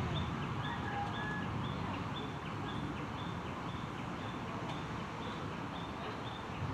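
Outdoor ambience: a short high note repeating evenly about twice a second and a couple of brief bird whistles about a second in, over a steady low rumble.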